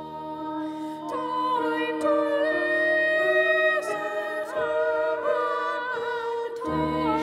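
A trio of boys' voices singing slow, held notes in harmony, the parts moving to new notes every second or two.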